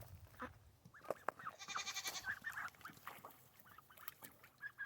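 A flock of ducks making faint, short, scattered calls, with a brief rapid chirping about two seconds in.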